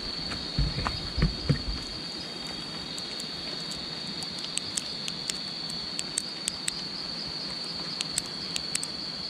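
Night insects keep up a steady high-pitched trill, while scattered sharp ticks of large water drops fall from the leaves of the trees. A few soft thumps come in the first two seconds.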